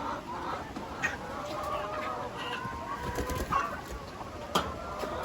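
A flock of laying hens clucking, many calls overlapping without a break. A few sharp knocks come through, the loudest near the end.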